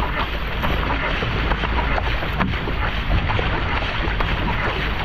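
Flatwater racing kayak under way: the paddle blades splash in stroke after stroke and water rushes along the hull, with wind buffeting the microphone as a steady low rumble.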